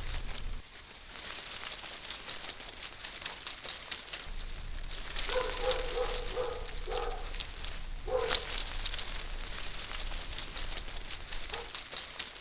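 Forest ambience: a steady crackling rustle over a low rumble, with an animal giving a quick run of short low calls about five seconds in, and single calls near eight seconds and near the end.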